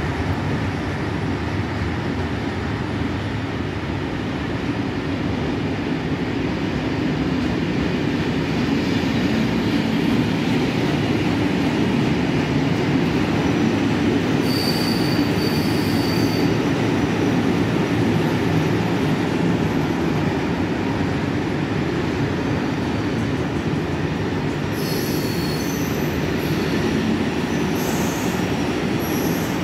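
Freight train of grain hopper wagons rolling past, a steady rumble of wheels on rails, with brief high-pitched wheel squeals about halfway through and again near the end.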